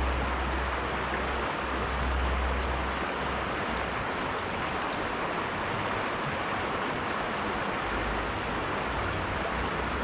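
River water running over rocks, a steady rush; a few quick, high chirps come in about four seconds in.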